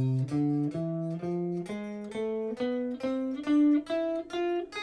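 Guitar playing the A harmonic minor scale one picked note at a time, climbing from the open A string at about two to three notes a second.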